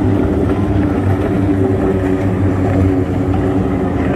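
Outboard engines of several GT-15 class racing powerboats running flat out on the lake, their overlapping buzz making one steady drone.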